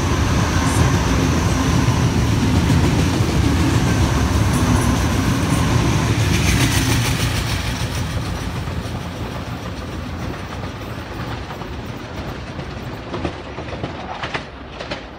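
Sydney Trains Waratah double-deck electric train running past close by with a steady low rumble and wheel clatter. About seven seconds in the sound drops to a quieter train pulling away into the distance, with a few sharp clicks near the end.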